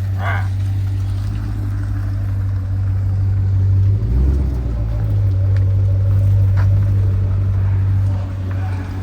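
Jeep SRT's 6.4-litre HEMI V8 running with a steady low drone, surging briefly about four seconds in and then settling back.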